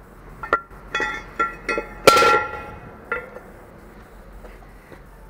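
Metal knocks and clanks from brake parts and tools being handled, about six strikes that each leave a ringing, bell-like tone. The loudest comes about two seconds in and rings on for a moment.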